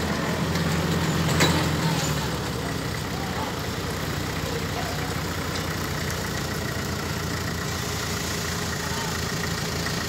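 Mobile crane's engine running steadily, a little louder in the first two seconds, with one sharp clank about a second and a half in.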